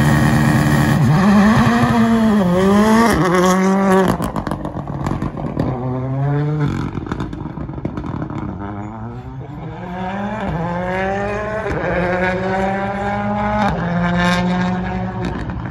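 Ford Fiesta rally car launching hard from a standing start and accelerating away, its engine revving up through the gears. The pitch climbs and drops back at each shift, about six times. It is loudest at the launch and a little quieter once the car has pulled away.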